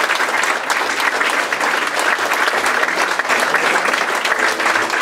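Theatre audience applauding, dense and steady clapping from many hands at a curtain call.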